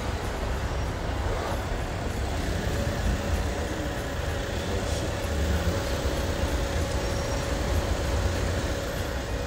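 Steady low rumble of a car heard from inside its cabin as it drives slowly. A faint steady tone comes in about two and a half seconds in and holds.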